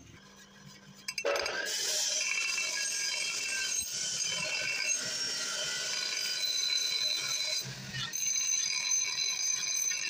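Bench grinder's abrasive wheel grinding the edge of a hand-forged steel basula (adze) blade: a steady, high grinding whine with several high ringing tones. It starts about a second in and eases briefly about eight seconds in before resuming.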